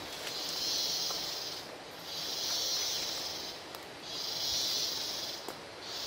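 A tropical rainforest insect buzzing in pulses: a high, hissing drone about a second and a half long that stops briefly and starts again, four times in a row.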